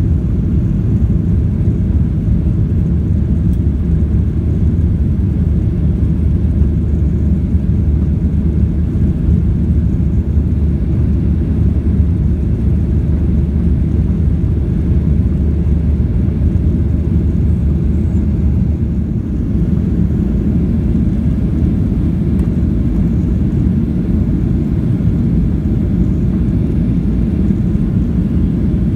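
Steady low roar of a Boeing 737's jet engines and rushing air, heard from inside the passenger cabin as the airliner climbs after takeoff, dipping slightly about two-thirds of the way through.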